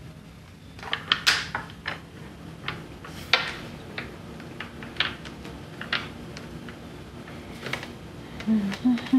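Mahjong tiles clicking and clacking against each other and the table as a player draws a tile and handles the tiles in front of him, in irregular sharp clicks over several seconds.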